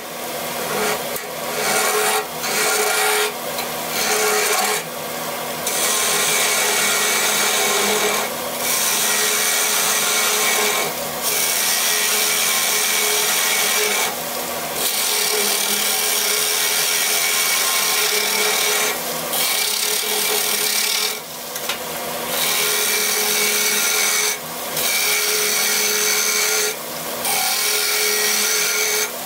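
A gouge cutting the inside of a spinning Siberian elm bowl on a wood lathe: a steady, rough hissing cut over the lathe's steady hum. The cut breaks off briefly every few seconds as the tool is lifted from the wood.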